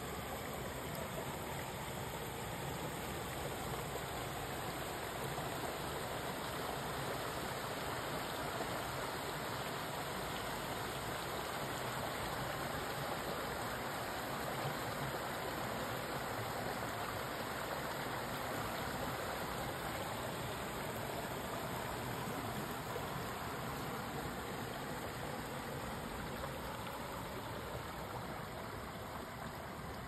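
Shallow stream flowing over rocks and pebbles: a steady rush of water.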